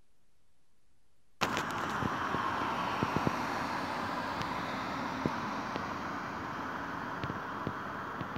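Faint hiss, then about a second and a half in a sudden cut to the steady rush of road traffic on a highway, with scattered small clicks.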